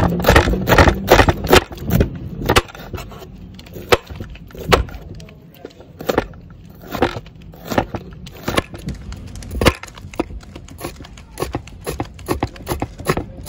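Knife slicing bitter gourd on a wooden cutting board: sharp taps of the blade striking the board, quick and close together at first, then slower and irregular, picking up again near the end.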